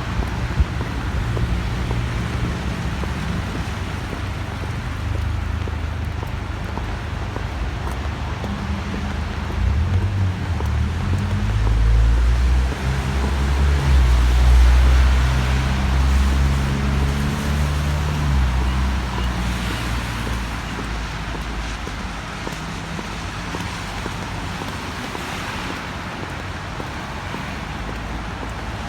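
Street traffic on a wet city road: a vehicle's engine rumbles past, growing louder to a peak about halfway through and then fading, over a steady hiss of tyres and traffic.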